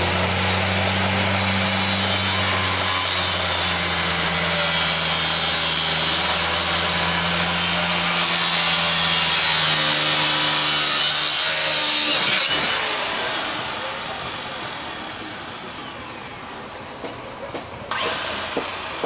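Circular saw running through timber with a steady whine and hum for about twelve seconds, then released and winding down as the blade coasts to a stop. A few light clicks follow near the end.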